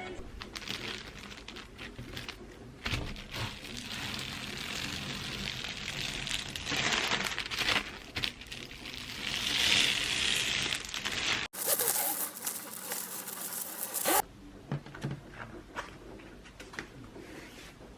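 Crinkling and rustling handling noise with scattered small clicks. About eleven and a half seconds in, an abrupt cut brings a brighter, hissier stretch of about three seconds, and then quieter clicks follow.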